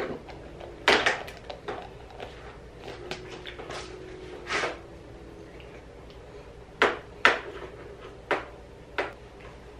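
Scattered sharp plastic clacks and knocks from a sippy cup and baby feeding utensils being handled and set against a high-chair tray, six or so in all, the loudest pair about seven seconds in.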